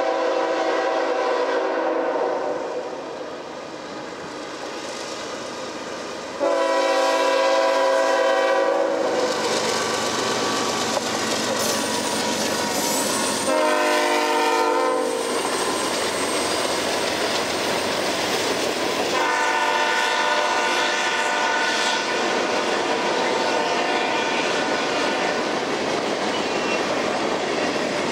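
Multi-note air horn of a CN freight train's lead GE ES44DC locomotive sounding the grade-crossing signal: long, long, short, long. Under and after it, the steady rumble and clickety-clack of empty covered hopper cars rolling past.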